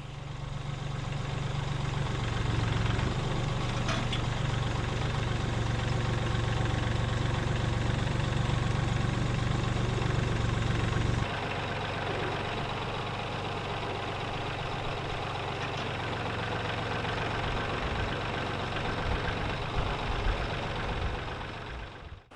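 Tractor engine running steadily with a low hum, louder for the first half and dropping to a lower, quieter running about halfway through.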